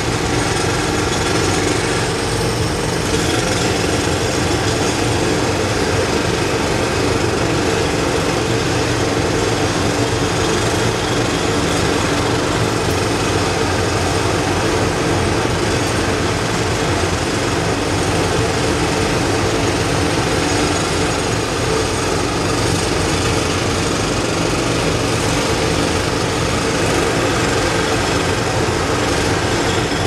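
Several jackhammers hammering at once on an elevated parking structure under repair, a loud, continuous overlapping rattle with no pauses.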